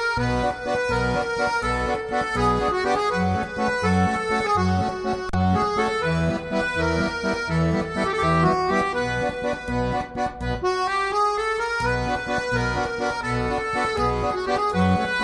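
Instrumental music: sustained melody notes over a regular bass beat.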